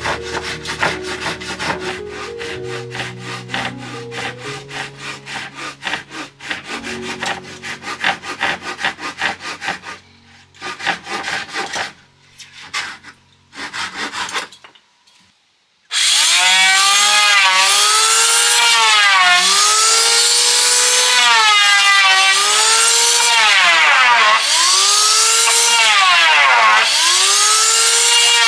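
Wood being sawn by hand: quick short strokes at first, a brief pause around the middle, then long steady strokes with a whining tone that rises and falls with each stroke.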